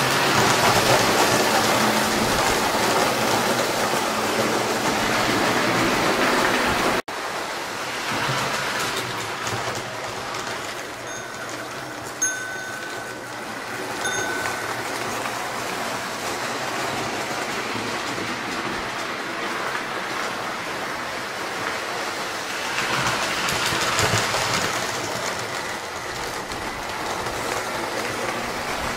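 Lionel postwar O-gauge toy train running on three-rail track: a steady rumble and rattle of wheels and motor. Two short tones sound in the middle, with a click just before them.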